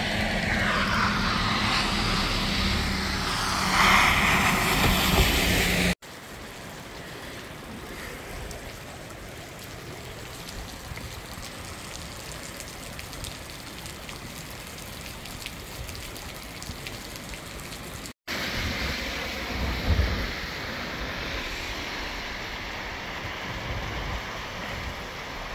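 Heavy rain and floodwater running over a flooded street make a steady rushing hiss. It is loudest for the first few seconds, breaks off abruptly and goes on softer through the middle, then rises again for the last several seconds. A brief low thump comes about three-quarters of the way through.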